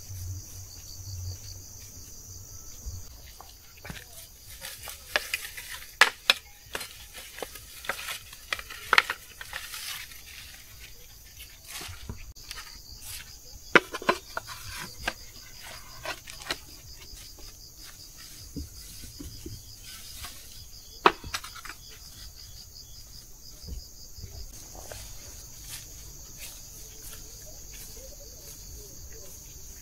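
Steady high chirring of insects, likely crickets, with scattered sharp knocks and clicks from handling or work.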